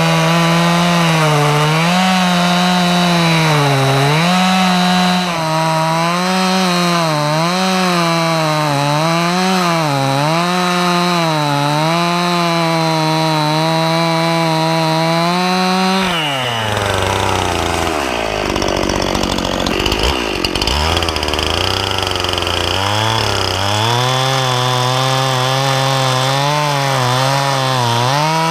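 Stihl MS 261 C-M two-stroke chainsaw running at high revs while cutting lengthwise into an upright log, its pitch wavering as the chain loads in the wood. About sixteen seconds in, the engine speed drops sharply, and it climbs back to full revs several seconds later.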